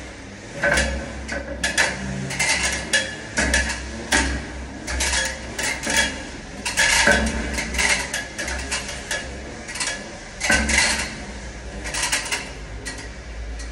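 Hard clinks and knocks as a ribbed insulator and metal fittings are handled on a ladder: a dozen or more sharp, irregular clicks with a little ringing.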